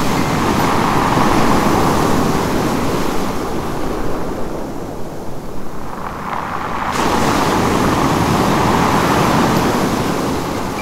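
Ocean surf rushing in two swells, one at the start and another in the second half.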